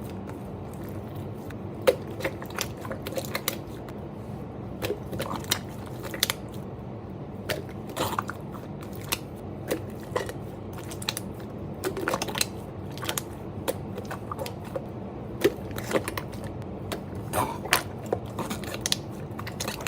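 Slime being squeezed and pressed by hand, giving irregular small pops, clicks and crackles a few times a second over a steady low background hum.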